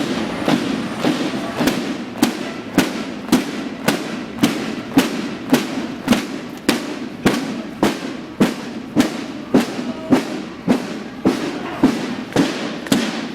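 Troops marching in step, their boots striking the street together in a steady beat of about two steps a second.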